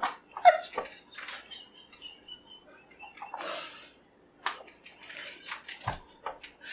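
Stifled, breathless laughter from several women: short gasps and squeaky giggles, with a long breathy exhale about halfway through and a few light clicks.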